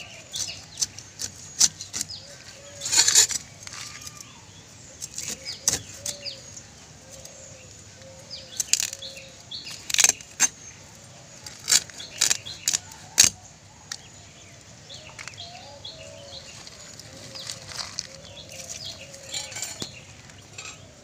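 A large silver carp being chopped on an upright fixed blade (boti): sharp, irregular clicks and crunches as the blade cuts through scales and bone, with a longer scraping burst about three seconds in. Birds chirp faintly behind it.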